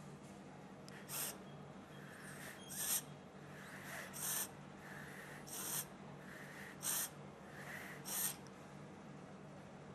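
Someone drawing on an e-cigarette and blowing out vapor: six short, sharp puffs of breath, about one every second and a half, each with a softer hiss just before it.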